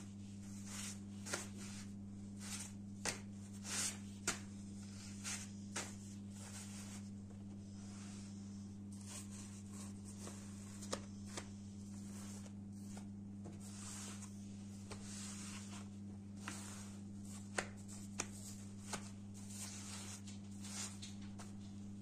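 A stack of freshly cooked lavash flatbreads being handled, their dry edges rustling and flapping in irregular soft crackles and light taps as a hand lifts and lets them fall. A steady low hum runs underneath.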